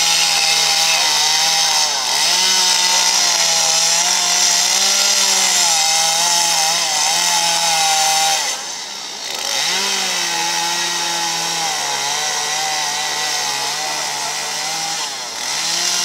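Two-stroke chainsaw running at high revs as it carves into wood, its pitch wavering as the blade bites and eases off. Just past halfway it drops off for about a second, then revs back up.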